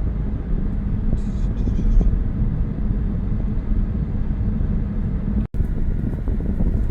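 Steady low rumble of a vehicle on the move, cutting out for an instant about five and a half seconds in.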